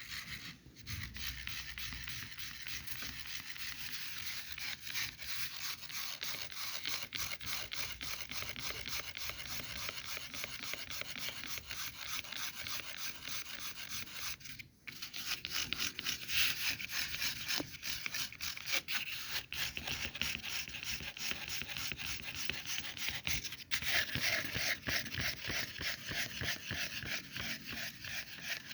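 Fast, continuous scratching and rubbing on a foam microphone cover. It breaks off for a moment about fifteen seconds in, then comes back a little louder.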